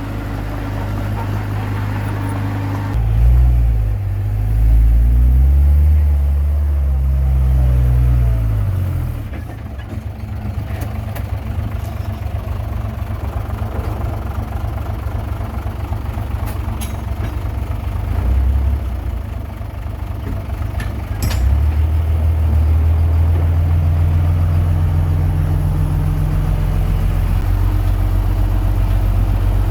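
A Komatsu D21P bulldozer's diesel engine runs under load. About three seconds in it revs up and down for several seconds, then settles into steady heavy running, with a louder stretch in the last third and a few sharp metallic clicks.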